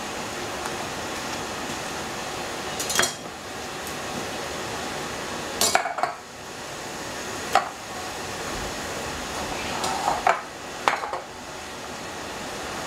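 Kitchen knife knocking and clattering against a plastic cutting board and tiled counter while raw chicken is cut: a handful of sharp knocks, with a quick cluster about ten seconds in, over a steady background whir.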